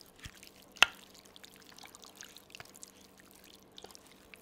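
Sliced beef being mixed in a wet marinade of olive oil, lemon juice and vinegar: soft wet squishing with small scattered ticks, and one sharp click about a second in.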